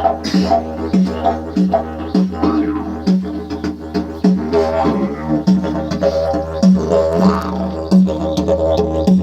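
Didgeridoo from the TakBom workshop, tuned to D#, played as a continuous low drone. Rhythmic accents come about twice a second, and the overtones sweep up and down as the player shapes the sound.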